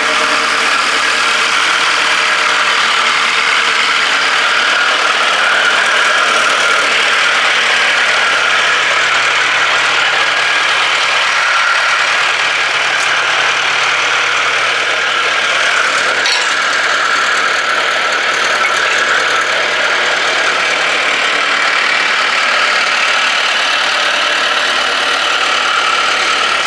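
Case 1845 skid steer loader's engine running steadily at an even speed, with no revving.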